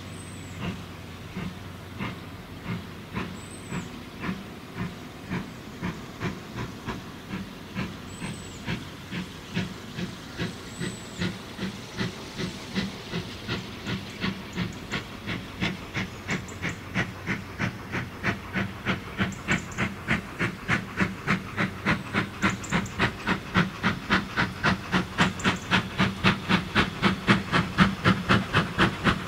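GWR Modified Hall class two-cylinder 4-6-0 steam locomotive 6990 Witherslack Hall pulling away from a station. Its exhaust beats are regular and quicken steadily, from about one and a half a second to nearly three a second, growing louder as it picks up speed and comes nearer, over a steady steam hiss.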